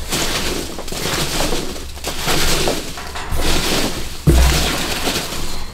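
Hands rummaging through foam packing peanuts and bubble wrap in a cardboard box: rustling and crunching that comes in surges about a second long. A dull thump about four seconds in.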